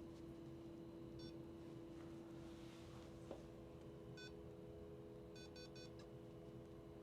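Short electronic beeps from a low-level laser therapy unit: single beeps about a second in and about four seconds in, then three quick beeps near the end, over a low steady hum.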